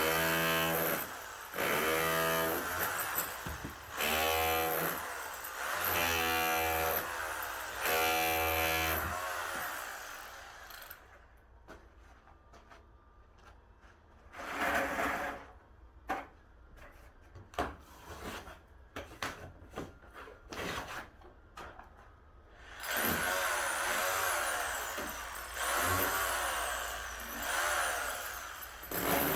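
A power tool runs in five short bursts of about a second each. Then comes a stretch of scattered knocks and clatter, and the tool runs again for several seconds near the end.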